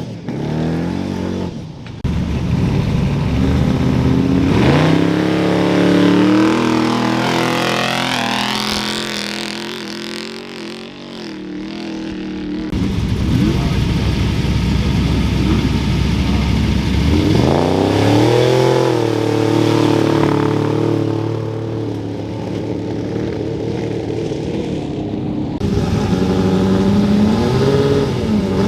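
Off-road desert race vehicles revving and accelerating away from a start line one after another. Their engine note climbs in pitch with each launch, a few seconds in, again past the middle, and once more near the end.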